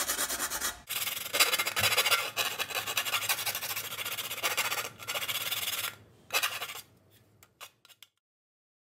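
Harsh, rapid rubbing and rasping in several long stretches with short breaks, then a few brief clicks before it cuts off.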